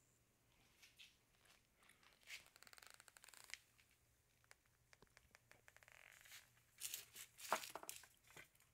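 Near silence, broken by a few faint, short clicks and rustles of handling: a couple about two to three seconds in, and a small cluster near the end.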